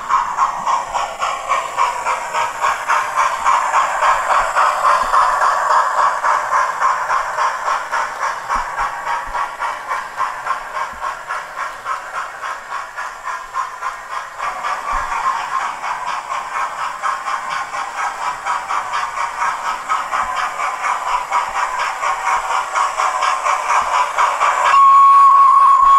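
Hornby Flying Scotsman OO model locomotive's TTS sound decoder playing steam-locomotive chuffing through its onboard speaker, a fast, even beat of exhaust beats as the model runs at speed. About 25 s in, a chime whistle sounds as one steady held tone.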